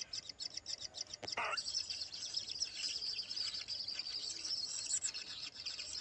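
Kingfisher nestlings giving a dense, high-pitched chirring of rapid begging calls, with one short louder squawk about a second and a half in.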